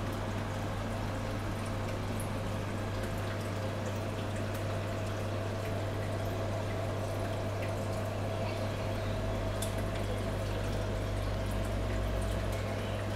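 Reef aquarium running: water trickling and dripping over a steady low hum from its pumps, with scattered small ticks.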